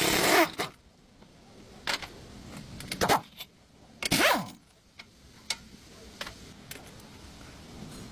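Short bursts of a power tool during front axle work on a car, two of them winding down in pitch, between scattered sharp metallic clicks and knocks.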